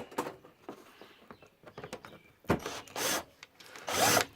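Two short bursts of a drill driving pocket-hole screws into wood, with quieter rubbing and handling of the wood before them.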